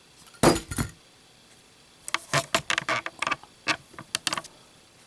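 Brass Zippo lighter's case and steel insert clicking and clinking during a drop test. Two sharp metal clicks come about half a second in. From about two seconds in, a quick run of small clinks and rattles lasts a couple of seconds.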